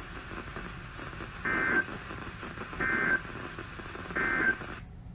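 Three short bursts of SAME digital data tones from a NOAA Weather Radio broadcast, the EAS End of Message (NNNN) code that closes the Required Weekly Test. The bursts come a little over a second apart, and the background hiss stops abruptly near the end.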